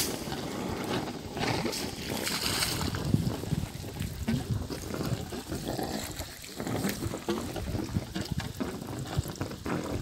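Borewell water from an air-compressor pump gushing out of 1-inch plastic pipes and splashing frothily into a pool on the ground, its level rising and falling unevenly.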